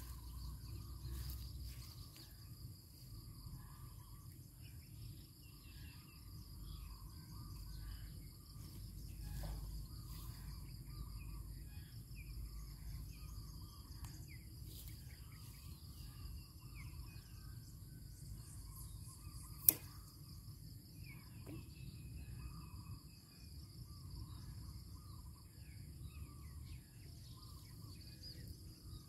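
Steady high-pitched insect chirring with scattered short bird chirps over a low rumble, and a single sharp click about twenty seconds in.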